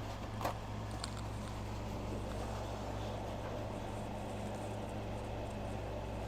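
A steady low mechanical hum, with two light clicks about half a second and a second in.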